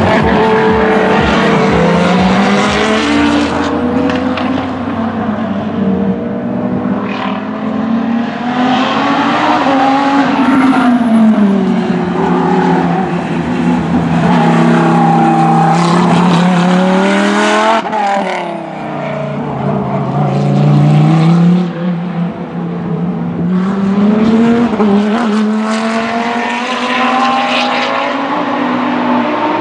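Lamborghini Gallardo GT3's 5.2 V10 racing engine at speed on a circuit, loud, its pitch climbing as it accelerates and falling back on braking and downshifts several times over, with one sharp drop about two-thirds of the way through.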